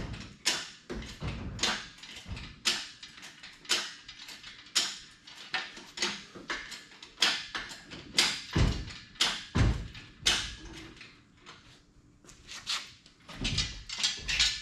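Engine hoist lifting the LS engine out of the engine bay: a run of irregular metal clunks and knocks, about one or two a second, with a few heavier thuds around two-thirds through and again near the end.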